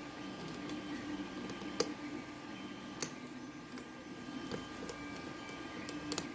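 Small metal clicks and ticks from lock picks working in a pin tumbler lock, two of them sharp, about two and three seconds in. Behind them a small machine hums steadily, its tones stepping up and down in pitch.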